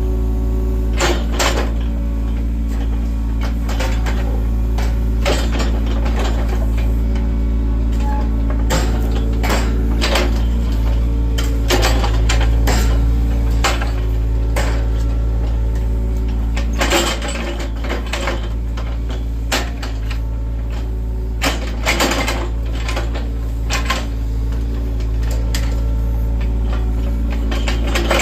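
John Deere excavator's diesel engine running steadily under work, with irregular metallic clanks and knocks from the machine's bucket and arm.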